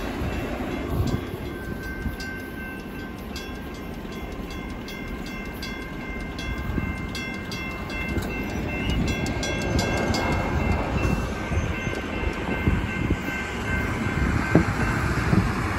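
Grade-crossing bells ringing, a General Signals electronic bell's steady tone with a WCH mechanical bell's rapid strikes, over the rumble of a Union Pacific intermodal stack train moving away. The bells stop about ten seconds in, and a pickup truck drives over the crossing near the end.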